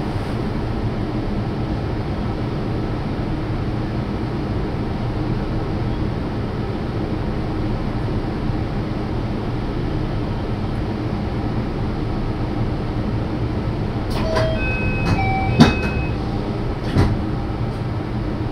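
JR Shikoku 5000-series Marine Liner running, a steady rumble of wheels on rail. Between about 14 and 17 seconds in there are several sharp clicks and brief high squeals from the wheels on the track, the loudest click about 15 seconds in.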